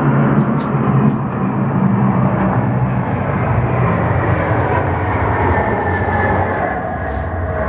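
Loud, steady rumble of heavy engines passing by, strongest in the low range and easing slightly toward the end.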